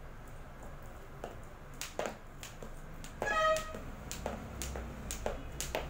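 Jump rope slapping the floor and sneakers landing in an uneven rhythm, about two hits a second once it gets going, with one brief high squeak a little past halfway.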